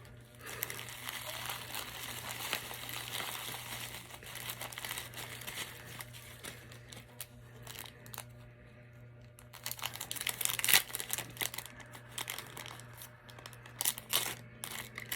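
Mystery-pin blind-bag packet being torn open and crinkled by hand, a run of rustling in the first few seconds, then sharper crackles about ten seconds in and again near the end.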